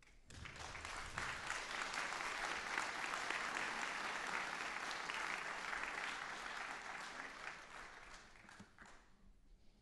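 Audience applauding. The clapping builds quickly, holds steady, and dies away over the last couple of seconds.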